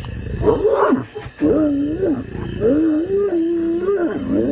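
Lions vocalizing while mating: about four drawn-out, wavering growling calls that rise and fall in pitch, the longest held for about a second and a half.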